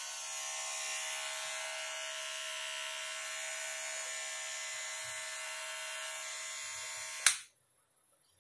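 Kemei KM-809A cordless hair trimmer running with a steady buzz from its blade motor, then switched off with a click about seven seconds in.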